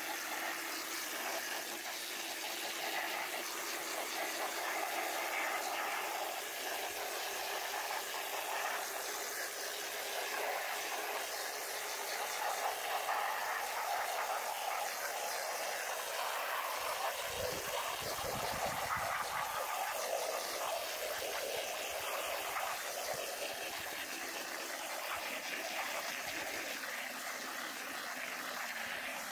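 Garden hose spray gun jetting cold water onto raw wool locks in a plastic colander standing in a pan of water, a steady hiss and splash as the grease is rinsed out of the fleece.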